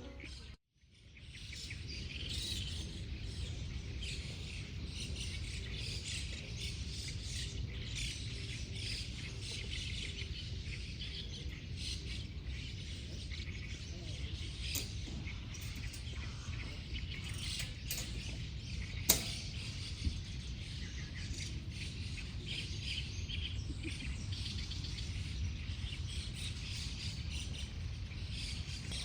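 Birds chirping over a steady low rumble of outdoor background noise, with one sharp click about two-thirds of the way through.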